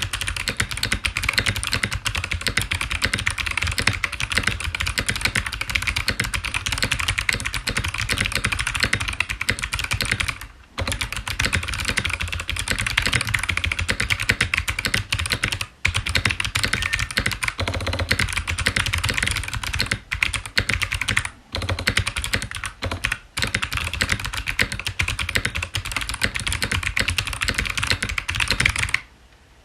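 Fast, continuous typing on a mechanical keyboard with clicky Kailh Box Jade switches in an aluminium Tofu65 case: a dense stream of sharp key clicks, broken by a few brief pauses and stopping just before the end.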